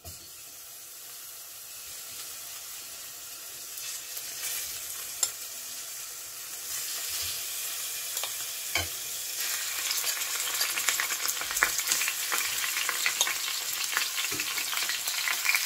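Beef cubes sizzling as they fry in hot olive oil in a stainless steel pot on high heat. The sizzle grows steadily louder as more pieces go in, with a couple of sharp clicks about five and nine seconds in.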